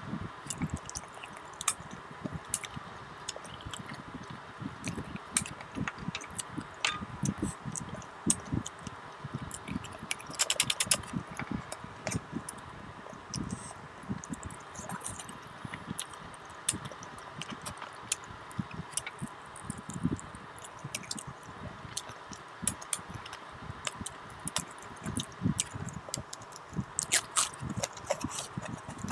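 Close-miked eating of mutton trotters (paya) in curry by hand: chewing, biting and sucking at the bones, heard as an irregular run of short wet clicks and smacks, with a brief denser burst of sharp clicks about ten seconds in.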